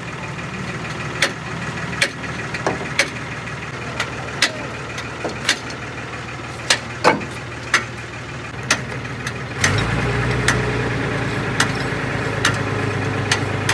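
An engine running steadily, with sharp knocks at irregular intervals, roughly one every second or less. About ten seconds in, the engine becomes louder and deeper.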